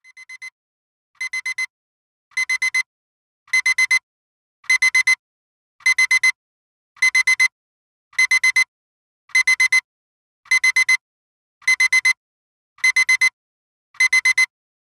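Digital timer alarm beeping in quick groups of four, a high electronic beep repeated a little more than once a second. It starts quietly, grows louder over the first few groups, then holds steady, signalling that the countdown has run out.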